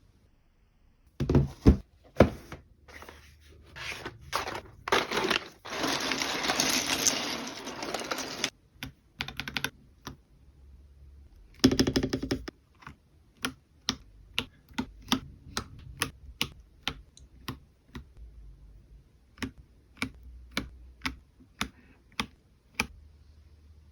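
Keystrokes on a keyboard fitted with peach bunny keycaps. A few loud clacks at first, then a few seconds of continuous rustle, a quick run of rapid typing around the middle, and single keys pressed at a slow, even pace after that.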